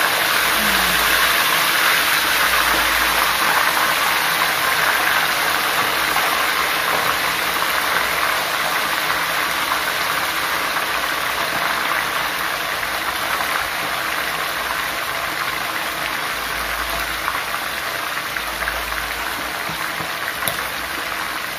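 Pieces of spice-simmered chicken deep-frying in hot oil in a wok: a loud, steady sizzle that slowly eases as the frying goes on.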